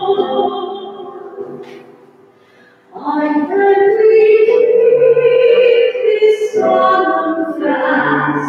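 A woman singing a hymn at Mass into a microphone. A phrase trails off into a soft pause about two seconds in, then she holds one long note and carries on singing.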